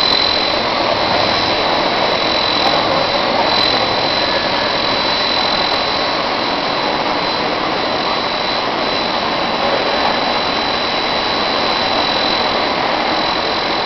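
Steady running noise of machinery in a PVC pipe extrusion plant: a dense, even hiss with a constant high-pitched whine over it.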